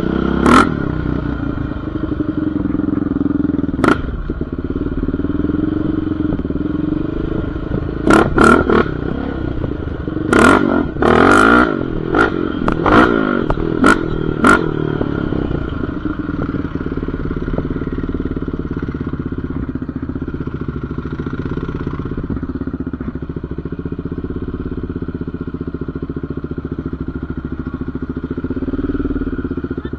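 Yamaha Raptor 700R ATV's single-cylinder four-stroke engine running on a rough dirt trail, with a run of sharp clattering knocks from the jolting ride in the first half. The engine settles to a steadier note in the second half.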